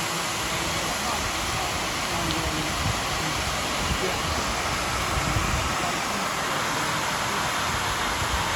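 Steady rushing outdoor noise with an indistinct murmur of crowd voices.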